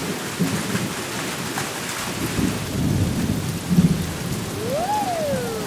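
Steady rain with low thunder rumbling through the middle. Near the end, a short whistling tone rises and then falls.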